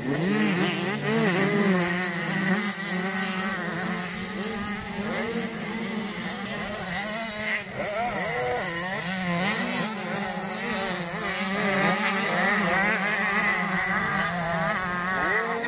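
Several 85 cc class motocross bikes racing together, their engines revving up and dropping back again and again as they accelerate and shift, the pitches of the different bikes overlapping.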